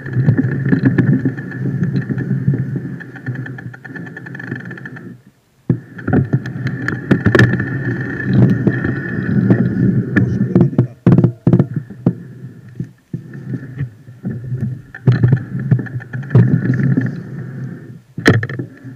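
Fat bike descending a forest dirt trail, heard from a handlebar-mounted camera: the wide tyres rumble over the ground while the bike rattles and knocks over roots and bumps. The noise cuts out briefly twice, about five seconds in and again around thirteen seconds.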